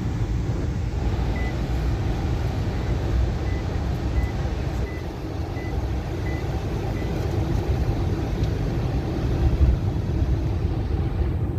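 Steady low rumble of a car's engine and tyres heard from inside the moving car. A faint short high beep repeats about every two-thirds of a second through the first half.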